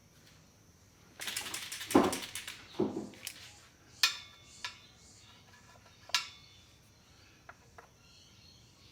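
Hand tools during under-car transmission work: a fast run of clicks for about two seconds, then two sharp metal clanks with a brief ring, about two seconds apart.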